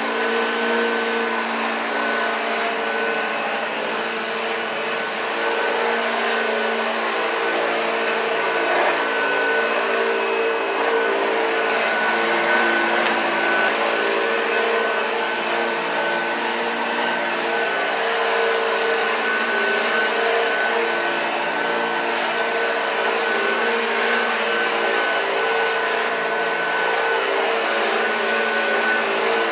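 1986 Hoover Junior U1206 upright vacuum cleaner running steadily with its belt-driven brush roll working the carpet. Its motor whine holds one steady high tone over a lower hum.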